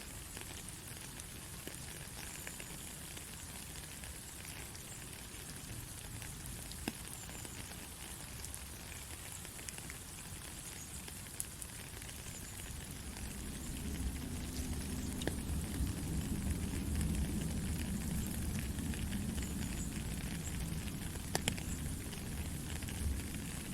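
Steady light rain: an even hiss with scattered drop ticks. About halfway through, a low rumble swells in underneath and holds.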